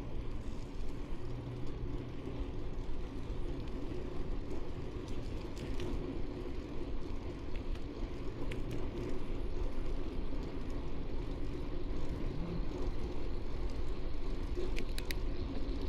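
Steady riding noise from a 1994 GT Timberline mountain bike: wind rushing over the small action-camera microphone and the tyres humming as they roll, with a few faint ticks.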